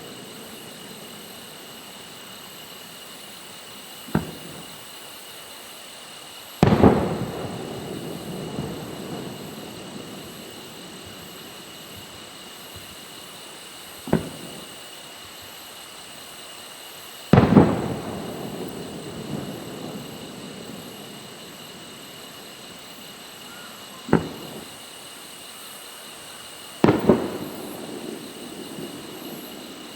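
Aerial fireworks going off in three pairs: a sharp report, then about three seconds later a louder boom with a long rolling echo, the last one a double bang.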